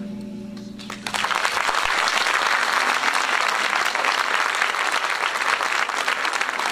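The last sung note and guitar chord fade away, and about a second in an audience breaks into steady applause.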